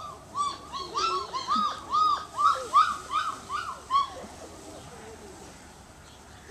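An animal gives a quick run of about a dozen short, high, rising-and-falling calls, about three a second, that stop about four seconds in.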